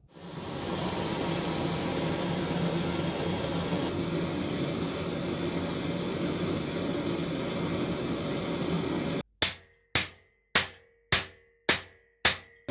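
A steady rushing noise for about nine seconds that cuts off abruptly, then six hammer blows on steel about half a second apart, each ringing briefly: hammering the bent wrench back into shape.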